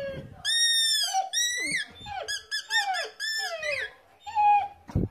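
German shepherd puppy whining in a string of short, high whines that rise and fall in pitch.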